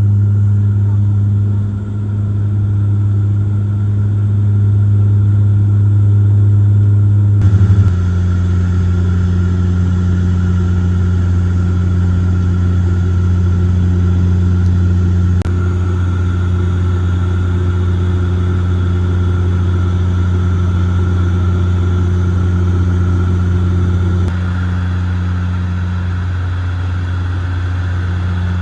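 Cabin drone of a De Havilland Dash 8 turboprop in flight: a steady, loud, low propeller and engine hum with a fainter higher whine. The tone steps slightly twice, about eight seconds in and again near the twenty-fourth second.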